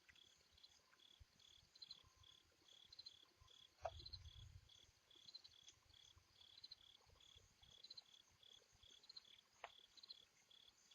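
Faint, steady chirping of crickets, about two chirps a second, with a dull low thump about four seconds in.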